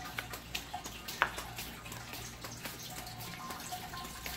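Faint irregular trickling and dripping of water, a stream of small splashy clicks, from the backyard swimming pool.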